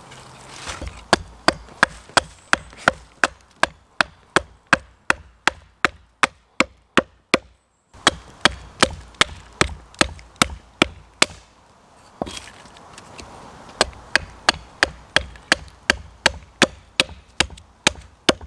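Hand saw cutting a log of firewood in quick, even strokes, about three a second, each stroke sharp and woody. It stops briefly about halfway, then resumes, pausing once more around two-thirds of the way in.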